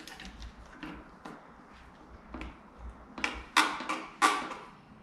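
Irregular clicks and knocks of motorcycle parts and tools being handled while the bike is taken apart, the two loudest knocks near the end.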